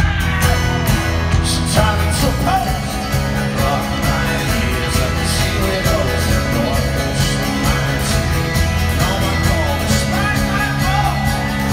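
Live folk-rock band playing an instrumental passage with acoustic guitar, upright double bass and drums, a melody wavering over a steady low bass line, in an arena's echo.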